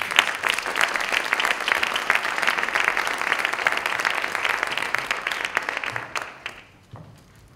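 Audience applauding: dense clapping that starts all at once, holds steady, then dies away after about six and a half seconds.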